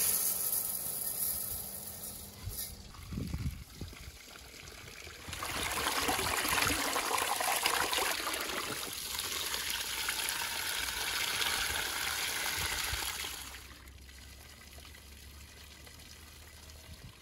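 Dry rice grains poured from a clay bowl into an enamel basin, a brief hissing rush at the start. About five seconds in, water from a spring spout starts splashing into the basin as the rice is rinsed by hand. It runs for about eight seconds, then drops away to a faint background.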